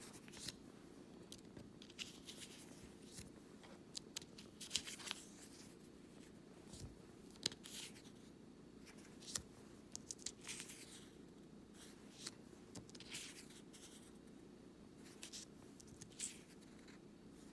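Paper sticker sheets and cardstock cards being handled and laid down one after another: faint scattered rustles and light taps over a low steady hum.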